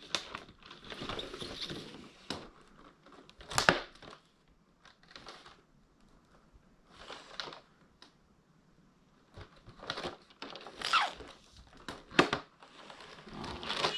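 Pokémon advent calendar box being handled: irregular rustling, crinkling and scraping of cardboard and packaging, with several sharp knocks, the loudest about four seconds in and around eleven seconds.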